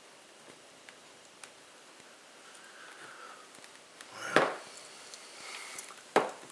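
Hands handling a ViewSonic G Tablet's plastic case, with light scattered clicks and taps. A louder short rustle or knock comes about four seconds in, and a sharp click about six seconds in.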